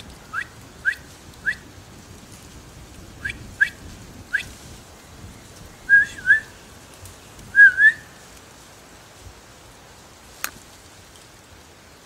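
A bird giving short, rising whistled notes: two runs of three, then two pairs of longer, wavering notes. A single sharp click comes about ten seconds in.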